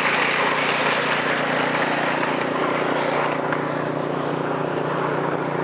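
Snowblower engine running steadily under load while it throws snow, a constant motor hum over a wide rushing noise that eases a little about three seconds in.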